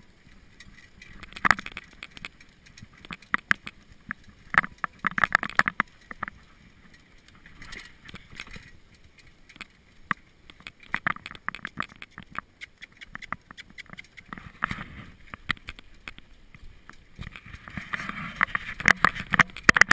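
Trotter pulling a sulky at a trot on a gravel road: hoofbeats and wheels on the gravel, heard as irregular sharp clicks and crackles, busier near the end.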